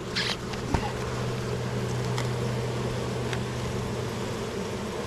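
Honeybees buzzing in a steady, low drone around an open hive, from a colony the beekeepers call cranky. A few light clicks sound near the start.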